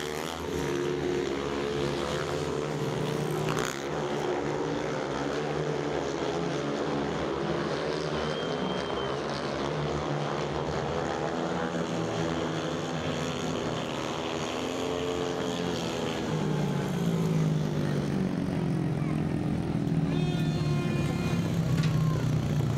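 Speedway bikes racing, their 500cc single-cylinder methanol-burning engines revving and easing off through the bends, several engine pitches rising and falling over one another. The engine sound grows a little louder in the last few seconds as the leader comes to the finish line.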